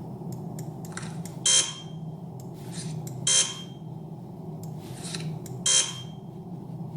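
Three sharp taps about two seconds apart, each with a brief ringing tone and each preceded by a fainter tap, over a steady low hum.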